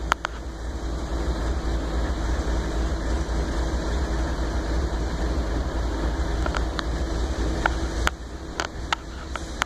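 CSX diesel locomotive rumbling steadily at low speed with a constant low drone. A few short, sharp clicks come in the last few seconds.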